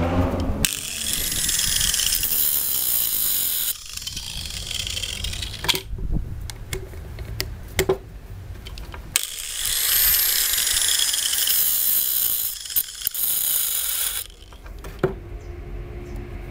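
Angle grinder sharpening the cutters of a chainsaw chain in two bursts of a few seconds each, its pitch rising as it spins up and falling as it winds down. Between the bursts the chain clicks as it is pulled along the bar by hand.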